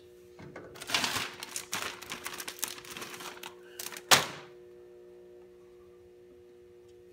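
Hands and tools working on a dirt bike's radiator hoses and clamps: about three seconds of rustling, scraping and clicking, then a single sharp knock about four seconds in.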